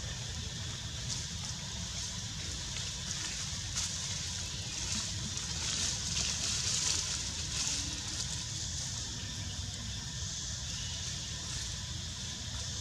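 Steady outdoor background noise: a high hiss that swells a little midway, over a low rumble, with no clear animal calls.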